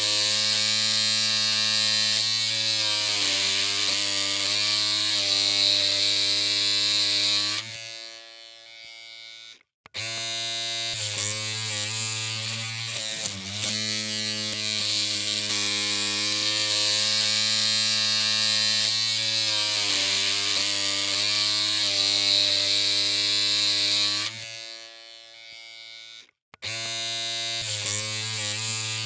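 Electric hair clippers humming with a steady low buzz, the pitch dipping briefly now and then. The hum cuts out twice for about two seconds and starts again.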